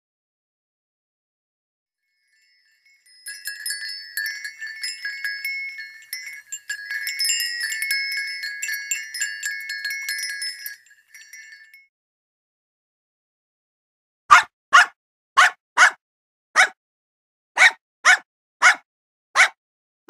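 Metal-tube wind chimes ring with many overlapping tones for about nine seconds. After a short silence a puppy yaps about nine times in quick, even succession.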